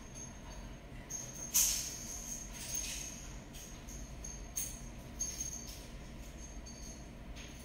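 Kitchen room tone with a steady low hum and a thin high whine, broken by a few light clinks or jingles, the sharpest about a second and a half in.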